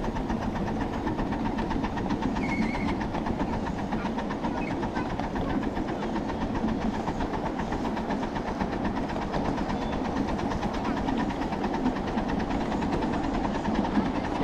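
A 7½-inch gauge ride-on live steam train rolling along its track, heard from aboard a riding car: a steady rumble and clatter of wheels on the rails.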